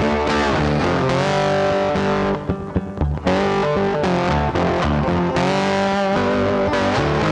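Background music led by distorted electric guitar, with a short break about two and a half seconds in.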